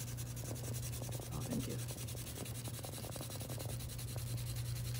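Small brass piece rubbed back and forth on 220-grit wet/dry sandpaper, a quick, even scraping rhythm of strokes, as its surface is sanded clean for soldering. A steady low hum runs underneath.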